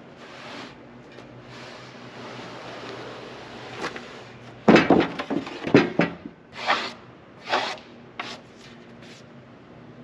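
A sawn pine scrap slab dragged across the top of a freshly squared beam, a soft scraping rub for the first few seconds, then a run of sharp wooden knocks and a few heavier thumps as it slides off and clatters against the sawmill bed.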